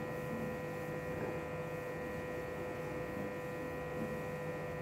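Steady electrical hum made of several constant tones, one low and others higher, with nothing else standing out.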